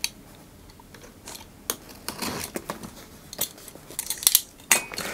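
A cardboard product box being opened by hand. A utility knife scrapes through the seal, then the cardboard rustles and knocks as the inner box is pulled out, with several sharp clicks.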